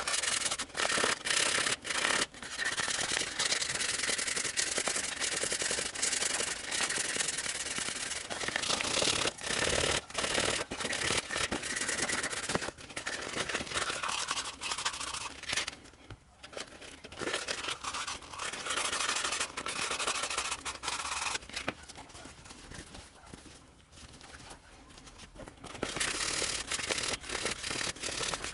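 A motorcycle brake caliper piston being hand-sanded with fine P2000 wet-and-dry abrasive paper to clean it up: continuous rapid rasping strokes with brief breaks. The rubbing eases off briefly about halfway and goes quieter for a few seconds past two-thirds through.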